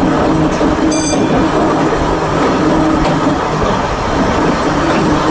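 Volk's Electric Railway car running along the track: a steady rumble of wheels on rail with the electric car's hum, and a brief high-pitched squeal about a second in.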